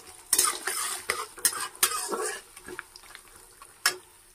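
A metal spatula stirs and scrapes moong dal and peanuts frying in hot oil in a metal kadai, over a steady sizzle. The scraping strokes come thick in the first half and thin out later, with one sharp knock of metal near the end.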